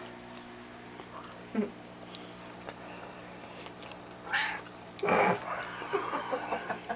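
A cat meowing in a few short calls, the loudest about five seconds in.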